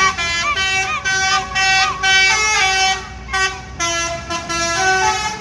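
Bus telolet 'basuri' musical horn playing a fast tune of quickly changing notes in short blasts, then cutting off abruptly near the end.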